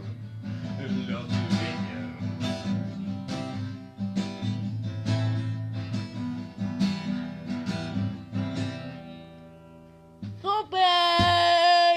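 Acoustic guitar strumming and picking the closing chords of a song, dying away after about nine seconds. Near the end a voice calls out one loud, drawn-out note that bends up at its start.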